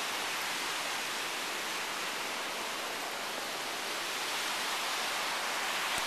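Steady, even rushing noise of outdoor ambience, with no breaks or gusts.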